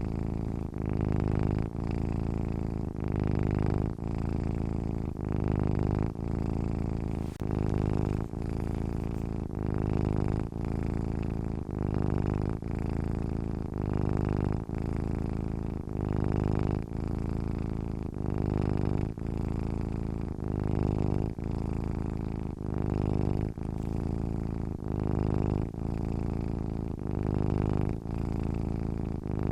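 Domestic cat purring steadily in its sleep, a low rumble that pulses with short breaks roughly once a second.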